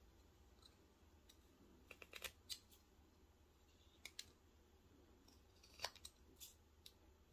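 Faint, crisp snicks of a small carving knife slicing thin chips off a wooden doll blank: a quick run of cuts about two seconds in, then single cuts around four, six and seven seconds.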